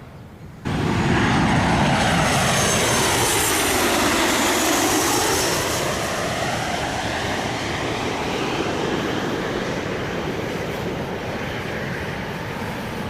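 Engines of a landing airplane passing low overhead. The noise starts abruptly, with a high whine that falls in pitch as it goes by, and is loudest in the first few seconds before slowly fading.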